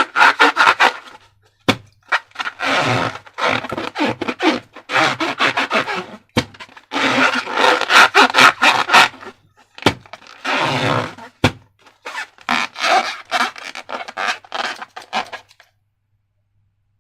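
Slime being worked by hand with balloons, in bursts of crackling, squishing noise studded with sharp clicks. It stops about a second and a half before the end.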